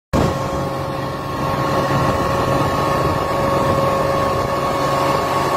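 Honda BF250D V6 outboard motor running steadily with the boat under way: an even engine drone with a constant high whine over it.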